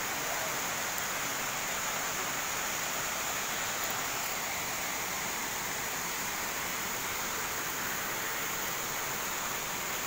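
Steady rush of water from a waterfall and the fast river below it, pouring over rocks, even and unbroken.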